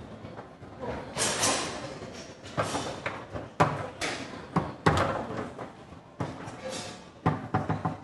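Foosball table in play: a rapid, irregular series of sharp knocks and clacks as the ball is struck, passed and caught by the rod men and the rods bang on the table.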